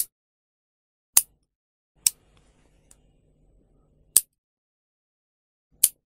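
Steel lever-type nail clipper snapping shut, five sharp clicks at uneven gaps of one to two seconds.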